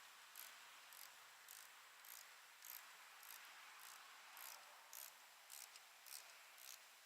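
Faint insect chirping outdoors, evenly repeated high-pitched pulses about twice a second over a soft steady hiss.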